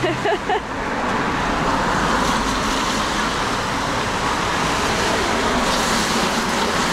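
Steady road traffic noise, a continuous hum of passing vehicles that swells slightly near the end.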